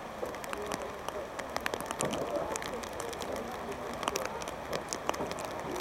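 Faint distant voices of rugby players calling across the pitch, over a steady outdoor hiss with many scattered sharp ticks of rain pattering close to the microphone.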